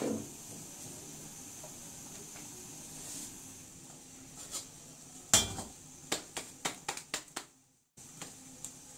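Heavy iron tawa set down on a gas stove's burner grate with one loud metal clank about five seconds in, then a quick run of sharp metallic clicks and knocks as it is settled. A faint steady hiss underlies the first few seconds.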